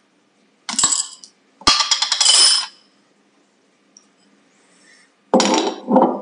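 Small glass jar, its metal screw lid and a coin clinking and rattling in hand in three bursts of quick knocks. The last burst is heavier and lower as the jar is set down on a wooden tabletop near the end.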